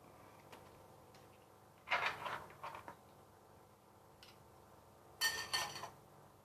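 Two short bursts of clattering as hard objects are handled and knock together, about three seconds apart; the second rings briefly.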